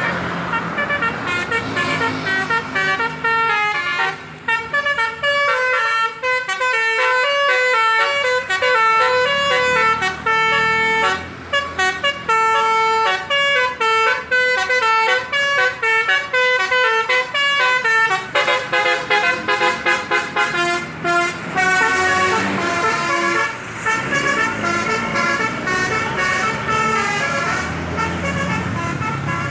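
A bus's telolet basuri horn, a multi-tone horn, playing a tune of quick stepped notes that rise and fall, with a few brief pauses and a faster passage about two-thirds of the way through.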